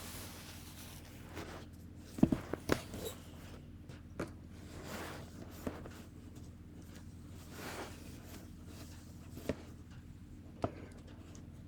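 Hair iron worked through hair: scattered sharp clicks and taps, the loudest a quick cluster about two seconds in, with soft swishes of the plates sliding along the hair, over a low steady hum.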